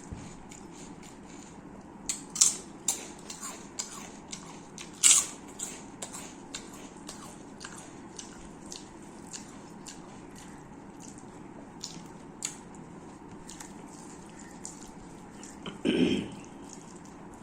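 Close-miked chewing and wet mouth clicks while eating chicken biryani, with a flurry of smacking clicks in the first half. A longer, louder mouth sound comes near the end.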